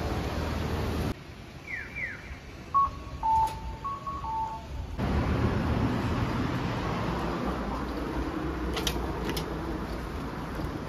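Electronic signal tones: two short falling chirps, then a two-note falling beep played twice. Before them a steady rush of outdoor noise cuts off, and after them a steady low din sets in, with a few clinks near the end.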